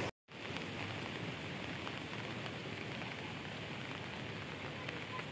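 Steady rain falling outdoors: an even hiss with faint scattered drop ticks. The sound drops out for a split second right at the start.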